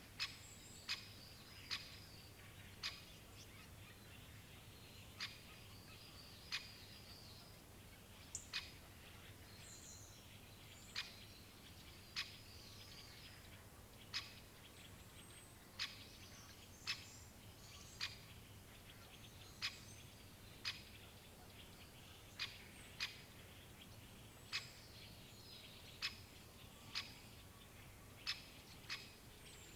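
Great spotted woodpecker giving its short, sharp single "kik" calls, repeated irregularly about once every one to two seconds. Other birds chirp faintly in the background.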